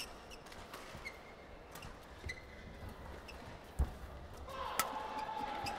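Badminton rally: sharp racket strikes on the shuttlecock about once a second, and a heavy thud of a foot landing in a lunge a little before four seconds in. Crowd noise swells near the end.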